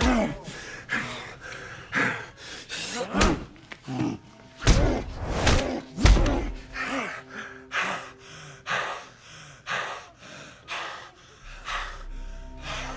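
A run of heavy thuds and impacts in the first half, mixed with a man's hard gasping breaths. From about halfway a music score with long held tones comes in under them.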